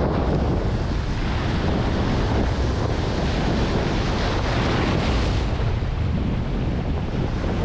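Ocean surf breaking and washing around a small wooden boat heading out through the waves, with wind buffeting the microphone. A wave breaks more loudly beside the boat about four seconds in.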